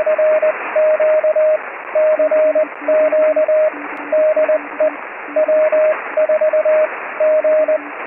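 Morse code (CW) heard through a radio receiver: two stations keying at once, a loud higher-pitched tone and a fainter lower one, sending dots and dashes over a steady hiss of receiver noise.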